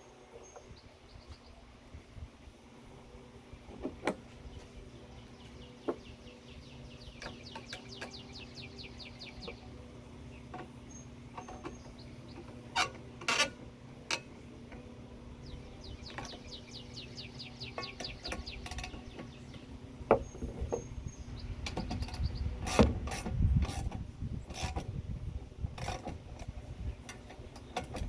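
Ratchet wrench clicking in quick runs while bolts are tightened during reassembly of a manual sandbox backhoe, with scattered sharp knocks of metal parts that come more often near the end.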